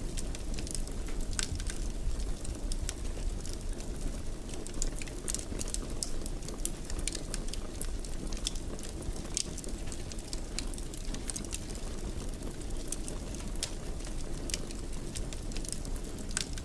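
Wood fire crackling in a fireplace: a steady low rumble of burning logs with frequent small sharp pops and crackles.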